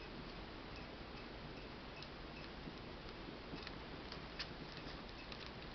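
Faint scattered clicks and ticks of someone leafing through a photo album, with one sharper click near the end, over a steady hiss.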